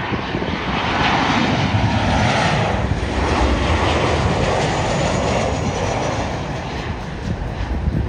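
Boeing 737-800's CFM56 jet engines passing low on approach: a wide rushing jet noise that swells about a second in and fades near the end, with wind buffeting the microphone.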